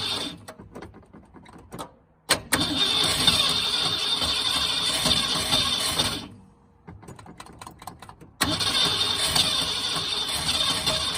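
1968 Ford Torino engine cranking over on the starter in three long bursts with short pauses between, without settling into a run.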